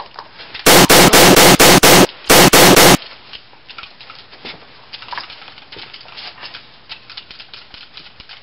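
A rapid volley of pistol gunshot sound effects, dubbed in: about a dozen shots in two quick bursts with a short break between, much louder than anything else. Faint clicks and handling noise follow.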